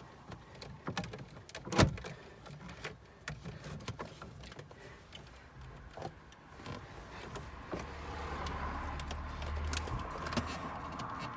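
Plastic clicks, rattles and knocks of hands tugging at a stubborn radio wiring plug behind a car dashboard, with one loud knock about two seconds in. A low hum comes in over the last few seconds.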